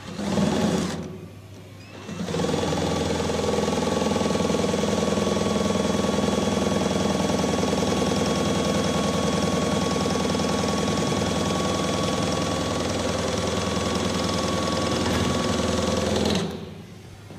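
Cordless drill spinning a long twist bit against the anti-drill lock cylinder of a pedal lock: a short burst about a second long, then after a brief pause a steady run of about fourteen seconds that stops suddenly near the end.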